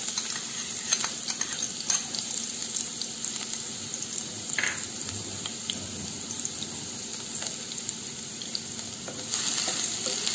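Chopped onions sizzling in hot oil in a nonstick kadai, a steady hiss with light crackling. About nine seconds in the sizzle gets louder as a wooden spatula stirs them.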